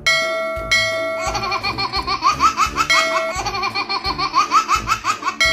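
A bell-like chime sounding several times, with a quick, evenly repeating giggle laid over it from about a second in: a comic laugh sound effect.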